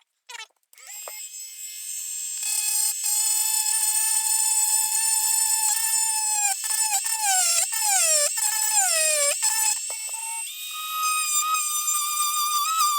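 Dremel rotary tool with a rounded diamond bit grinding the back off a metal rivet fastener: a high whine that starts about a second in, its pitch dropping several times under load, then running higher near the end.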